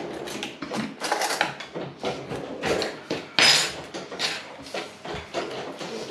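Close-up eating and food-handling noises as a lahmacun is held and bitten: an irregular run of short rustles, clicks and knocks, with one louder rustle about three and a half seconds in.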